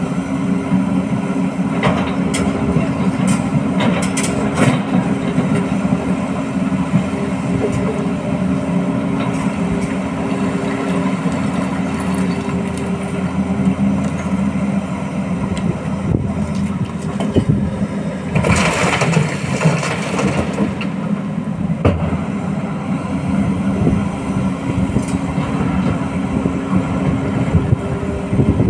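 Diesel excavator engines running steadily as an excavator digs broken rock, with several sharp knocks of rock in the first few seconds and a burst of hissing about two-thirds of the way through.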